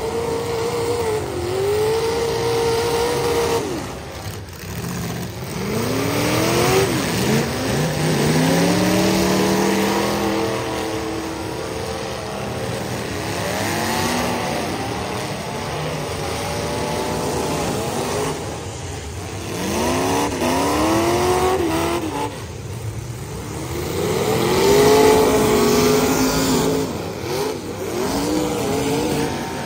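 Several demolition derby car engines revving hard, their pitch sweeping up and down over and over as the cars accelerate, reverse and ram one another.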